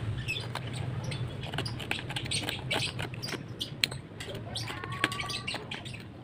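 Curved knife blade shaving bark and wood from a forked tree-branch slingshot frame: a run of short, irregular scraping strokes and clicks, the sharpest a little before and after the midpoint. Faint bird chirps sound behind it.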